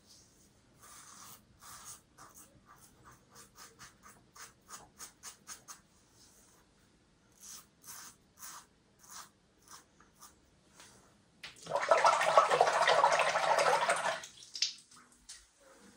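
Double-edge safety razor scraping through lathered stubble in short quick strokes, about two a second, then slower separate strokes. About twelve seconds in, tap water runs loudly for about two and a half seconds.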